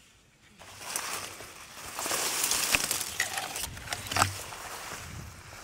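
Tall dry grass and leafy stems rustling and swishing as someone pushes through them, with a few sharp snaps of stalks. It starts about half a second in and is loudest around the middle.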